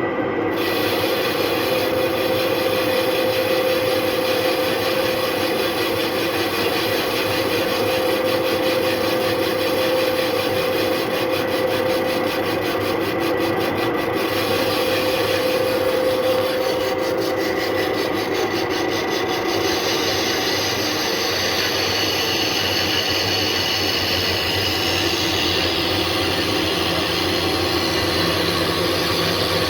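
Metal lathe turning a wheel while its cutting tool cuts a V-belt groove, a steady machine hum with continuous cutting noise. The cutting sound changes character a couple of times through the cut.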